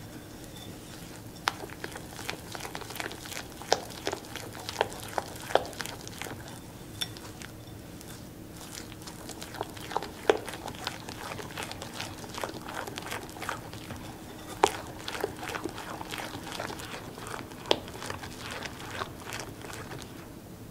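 A kitchen utensil tapping and scraping against a mixing bowl as batter is stirred by hand: irregular sharp clicks, one to three a second, with a few louder knocks.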